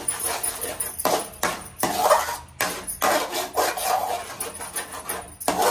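Slotted metal spatula scraping and knocking against a metal wok as eggs frying in oil are stirred and broken up, in quick irregular strokes a few times a second.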